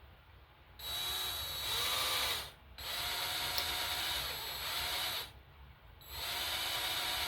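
Power drill running a reverse (left-hand) drill bit into a bolt broken off in an engine block, in three short runs with brief pauses; the first run changes speed. The bit is cutting into the bolt.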